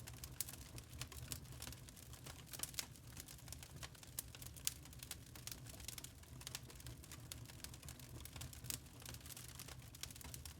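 Log fire crackling in a fireplace: irregular sharp pops and snaps of burning wood over a low steady rumble, with one louder pop about halfway through.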